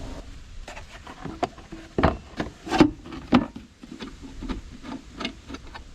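Irregular clicks and knocks of metal parts and hand tools being handled while a garden mulcher's cutter assembly is reassembled, the loudest knocks about two to three seconds in.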